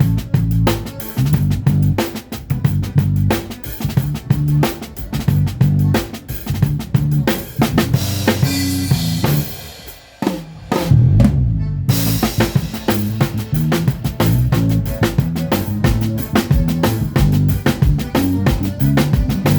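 Drum kit played in a steady groove during a sound check: kick drum, snare and rimshots over a bass line. About eight seconds in, the beat gives way to a cymbal wash and drops out briefly. The groove comes back a couple of seconds later.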